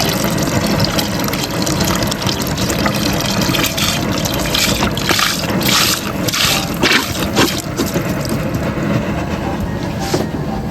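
Chicken broth pouring and gushing into a large pot of rice, a steady rushing liquid noise with several louder surges around the middle.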